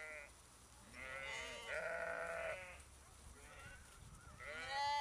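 A flock of sheep bleating: several overlapping bleats, including a long one about two seconds in and the loudest one near the end.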